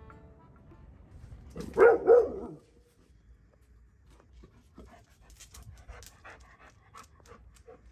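A dog gives one short, wavering vocal sound in two quick pulses about two seconds in, the loudest thing here; faint clicks and small rustling noises follow.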